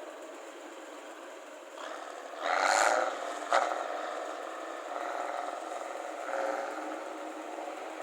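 Rice combine harvester's engine running with its loud exhaust, a steady hum with a louder rushing surge about two and a half seconds in and a sharp crack just after it.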